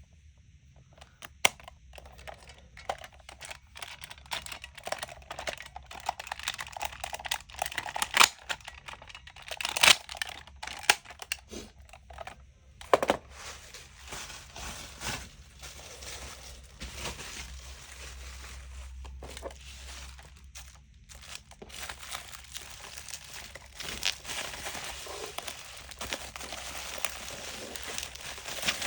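Crinkling and rustling with many scattered sharp clicks and taps, as of something being handled at close range.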